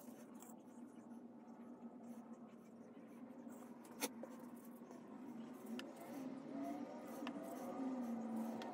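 Faint room noise with a steady low hum and a few sharp clicks, the loudest about four seconds in.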